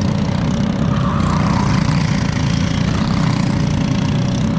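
Racing go-karts running on the track, their small single-cylinder engines making a continuous drone, with one engine note swelling about a second in as a kart accelerates.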